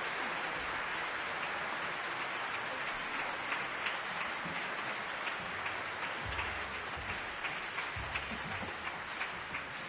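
Theatre audience applauding in a dense, steady wash, with sharper single claps standing out from about three seconds in.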